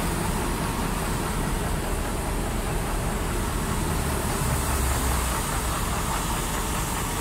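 Heavy vehicle engine idling with a steady low rumble that swells slightly about two-thirds of the way through.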